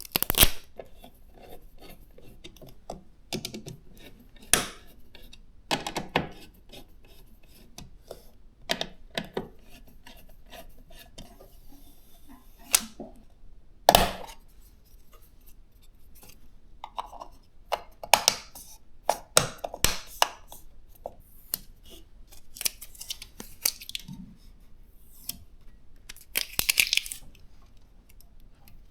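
Hands handling PC components and hardware: an irregular run of plastic and metal clicks, taps and rubbing, with a louder knock about halfway through and a burst of rustling near the end.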